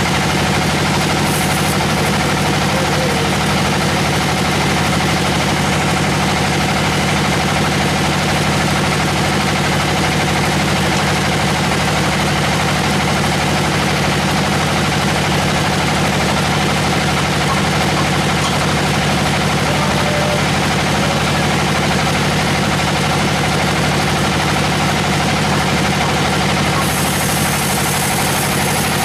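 Sawmill machinery running steadily, a constant loud engine-like drone with a dense hiss over it.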